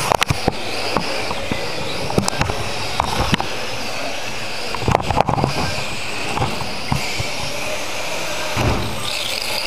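Onboard-camera sound from a mini RC car crashing and tumbling on a carpet track: a cluster of sharp knocks and clatter at the start and again about five seconds in, over a steady whirring hiss of motors and tyres on the carpet. The car is out of control because its receiver has died.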